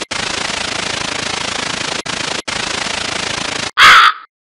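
A steady, rapid buzzing rattle with a few brief breaks, cut off about three-quarters of a second before the end by one loud crow caw.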